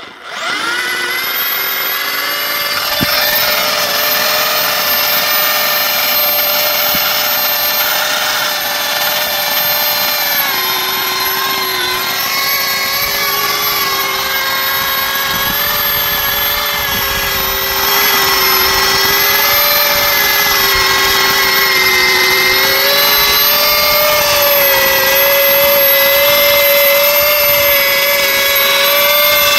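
Hand-held plastic extrusion welder running steadily: a loud motor whine with several tones whose pitch drifts slightly as it lays a plastic weld bead along a geomembrane seam. It gets a little louder about 18 seconds in.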